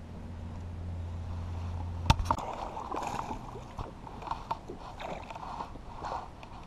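A steady low hum stops just after a sharp click about two seconds in. Then a hooked bass splashes repeatedly at the water's surface beside the kayak as it is reeled in, in a run of short, uneven splashes.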